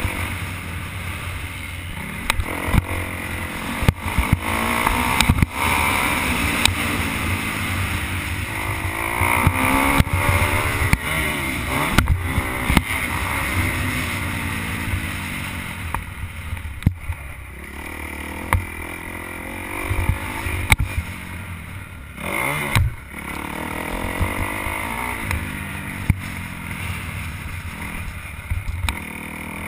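Motocross bike engine revving up and falling back again and again as the rider accelerates and shuts off around the track, heard from the rider's helmet camera over a steady low rumble. Occasional sharp knocks cut through.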